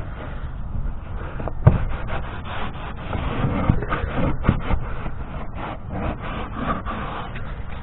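Piece of carpet scrubbed back and forth over a plastic kayak hull in quick, uneven strokes, rubbing off grime.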